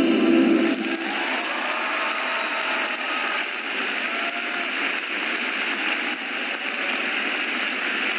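Program music ends about half a second in, then a large arena crowd applauds steadily.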